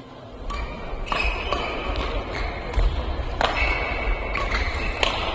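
Badminton rally: several sharp racket strikes on the shuttlecock, about two seconds apart, with court shoes squeaking on the floor and feet thudding between shots.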